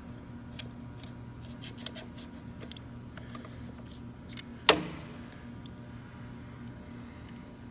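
Metal gearbox parts being handled, with light clicks and taps and one sharp metallic clank with a short ring about two-thirds of the way through, over a steady low hum.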